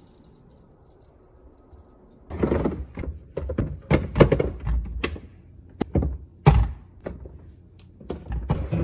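Oranges being picked out of a plastic refrigerator crisper drawer and put into a stainless steel colander: a run of irregular thunks, knocks and rattles that starts about two seconds in.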